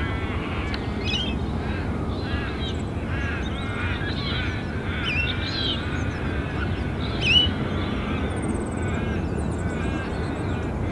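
A flock of birds calling over one another in short, overlapping chirps and squawks, with one louder call about seven seconds in, over a steady low rumble.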